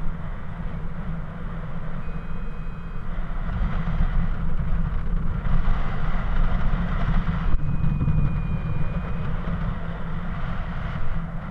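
Wind buffeting the microphone during a paraglider flight: a steady low rumble of rushing air with a hiss above it. Two faint high tones, each about a second long, sound around two and eight seconds in.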